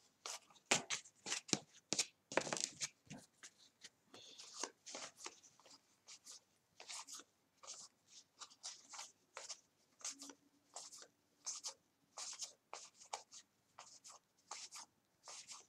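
Baseball trading cards being flipped through one after another, each card slid off the stack from hand to hand, giving a faint run of quick papery flicks and slides at about two a second.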